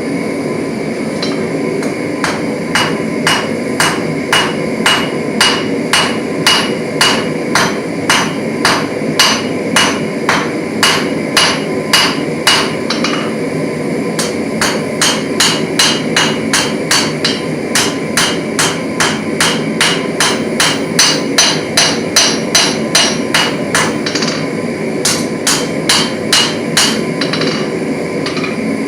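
Hand hammer striking hot titanium bar stock on an anvil, about two to three ringing blows a second in three runs with short pauses between, over a steady rushing noise.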